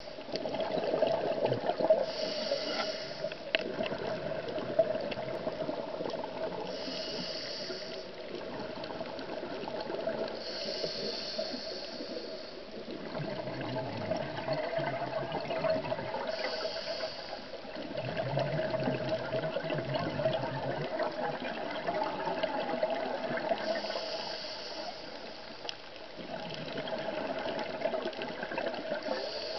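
Scuba diver breathing through a regulator underwater. There is a short hiss on each inhale every four to six seconds, and bubbling, rumbling exhaled air between the breaths.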